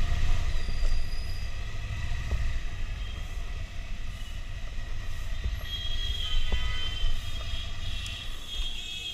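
Ducati Monster's L-twin engine running at low speed as the motorcycle rolls slowly, heard as a steady low rumble, with a faint high squeal about six seconds in.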